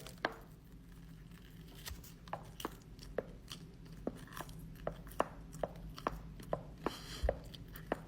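A woman's jaw joint (temporomandibular joint) popping loudly as she chews, a sharp click roughly twice a second. The jaw slides out of its socket and pops back in each time the mouth closes, which the orthodontist puts down to trauma, a break or something similar. He warns it will wear down the jaw socket.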